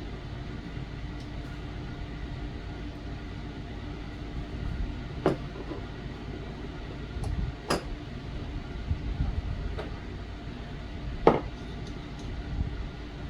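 A few sharp metallic clicks and taps of small steel revolver parts being handled while the hammer spring is held in place, over a steady low hum. Three clicks stand out, spread a few seconds apart, the loudest about eleven seconds in.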